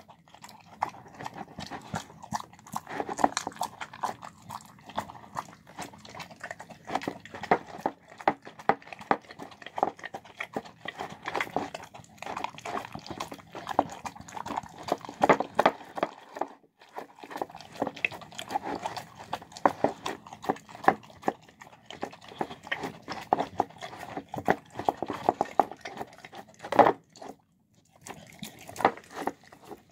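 Dog eating a meal of chicken, rice, cabbage and apple from a bowl: a quick, irregular run of wet chewing and smacking clicks. There is a short pause about halfway, and a louder knock near the end is followed by a brief gap.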